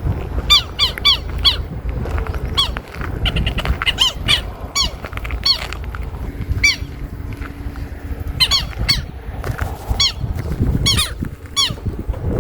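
Birds calling with short, high squawks that slide down in pitch, often in quick runs of three or four, repeating over a steady low rumble.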